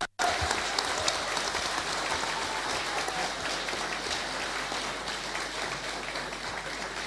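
Audience applauding: a dense patter of many hands clapping that slowly fades.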